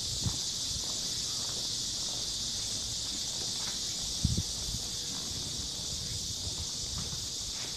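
Steady, high-pitched drone of insects, with footsteps on the walkway underneath it and a brief knock about four seconds in.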